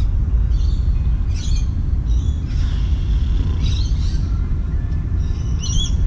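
Steady low rumble of wind on the microphone, with birds chirping in short calls about five times, the last near the end being the clearest.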